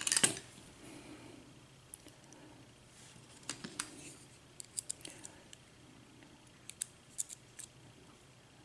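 Small metal parts of a Corbin euro pin-tumbler lock cylinder clicking and tapping as it is taken apart. A short clatter comes right at the start, followed by scattered light clicks in small clusters.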